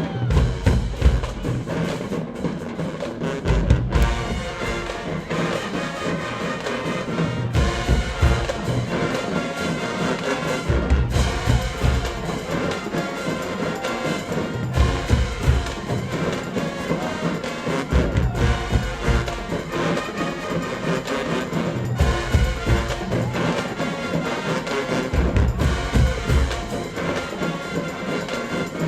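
HBCU-style high school marching band playing, with brass, sousaphones and drumline. Heavy low-end passages swell and drop back every few seconds.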